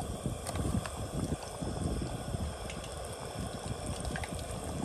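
Breaded catfish nuggets deep-frying in a small pan of hot vegetable oil: steady sizzling and bubbling with many small crackling pops.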